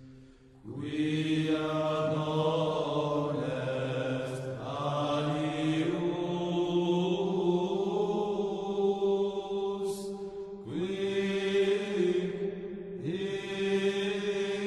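Slow vocal chant with long held notes, starting about half a second in, with new phrases entering three more times, some with an upward scoop into the note.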